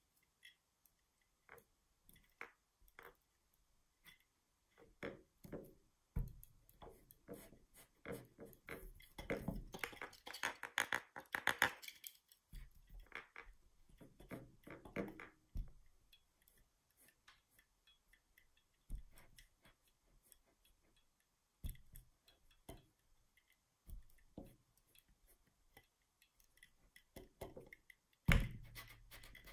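Kinetic sand crunching and crackling as the base of a Pennywise head-knocker figurine is pressed down into it, with scattered soft knocks. A denser run of grainy crackle comes about ten seconds in, and the loudest knock comes near the end.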